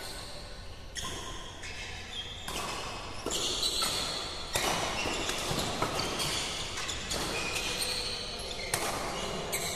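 Badminton doubles rally: several sharp racket hits on the shuttlecock and short high squeaks of sneakers on the court mat.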